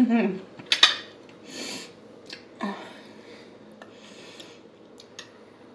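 Close-miked eating sounds: a short hummed "mm" at the start, a sharp click of a metal fork about a second in, then soft chewing clicks and breaths and sniffs through the nose.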